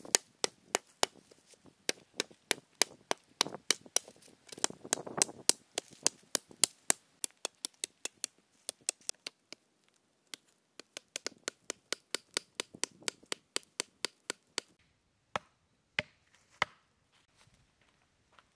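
Large knife chopping into a green wooden stick on the forest floor, quick sharp strikes about three or four a second. They pause briefly about ten seconds in, resume, and end with a few spaced single blows.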